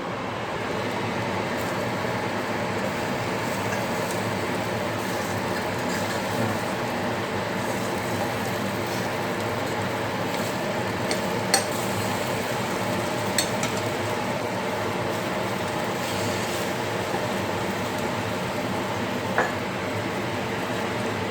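Coffee maker brewing: a steady hiss and sizzle, with a few sharp clicks.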